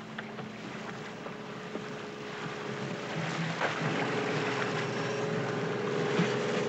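Sea water splashing and churning as steel shark cages are lowered into the sea, over the steady hum of a ship's engine. The splashing grows louder from about three seconds in as the cages hit the water.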